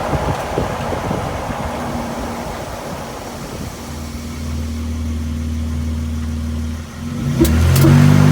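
2024 Nissan Frontier Pro-4X's 3.8-litre V6 idling at a stop, then pulling away with its engine note rising near the end. Two short clicks come just as it starts to accelerate. This is the noise on acceleration from a stop that the owner cannot identify.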